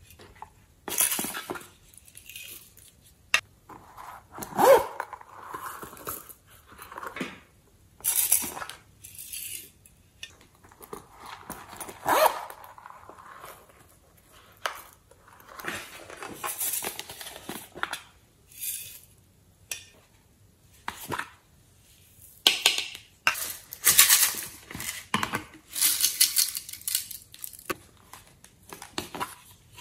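Hands handling small plastic cases and a soft piping bag: irregular clicks, taps and short rustles as the containers are opened and emptied over a tray of slime.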